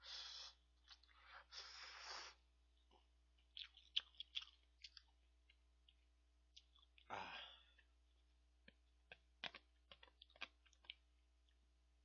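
A person slurping instant ramen noodles and chewing close to a microphone. There are two slurps right at the start and another about seven seconds in, with wet mouth clicks and smacks between them.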